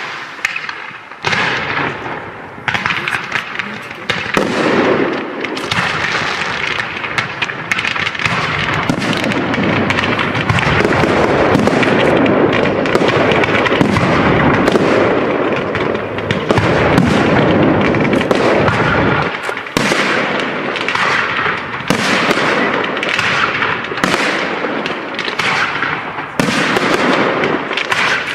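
Fireworks display: shells bursting with dense crackling and rapid bangs, building to a thick, continuous barrage in the middle and thinning to separate bursts near the end.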